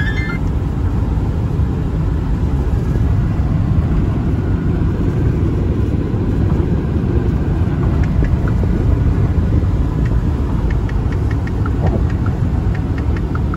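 Steady low rumble of tyre and road noise heard inside a car's cabin while driving at highway speed.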